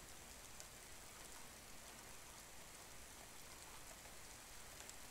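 Faint steady rain, a soft even hiss with the occasional light drop tick.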